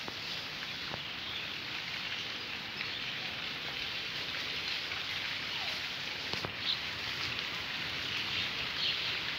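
Steady outdoor hiss, likely light rain, with a few faint bird chirps and a single sharp tap about six and a half seconds in.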